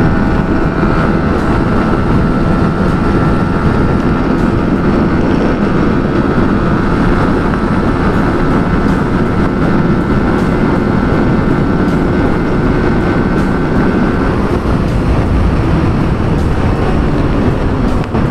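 Sport motorcycle running at steady high revs at about 120 km/h, under a heavy rush of wind on the microphone. A thin engine whine sits above the rush, sinks a little and fades out about 14 seconds in.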